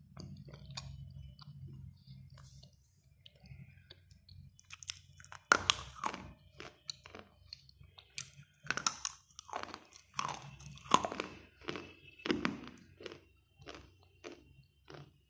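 Dry grey clay being bitten and chewed: a string of sharp, irregular crunches starting about five seconds in, after a few seconds of faint handling.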